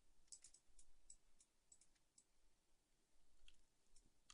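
Faint computer mouse clicks, a handful scattered over a few seconds, as edges are picked on screen.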